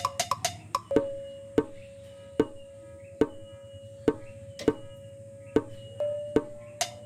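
Background music: a steady percussion beat of sharp, wood-block-like strokes under a held tone that shifts in pitch near the end.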